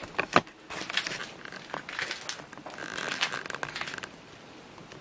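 Crunching and crackling, as of debris underfoot, with a couple of sharp clicks near the start. The crackling dies down about four seconds in.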